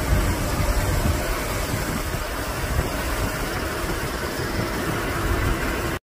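Steady engine and road noise of a moving vehicle, with a low, uneven wind rumble on the microphone.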